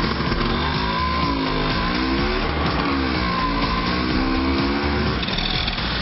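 Vintage kick-start scooter's engine revving as it pulls away, its pitch falling and rising again twice as the throttle is worked. Background music with a steady low beat plays along.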